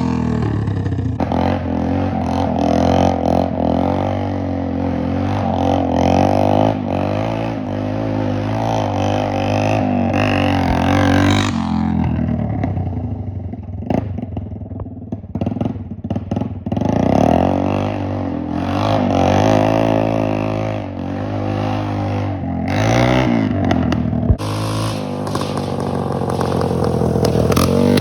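Honda CT110 postie bike's small single-cylinder four-stroke engine running and revving, its pitch rising and falling over and over. About twelve seconds in it drops away for a few seconds before picking up again.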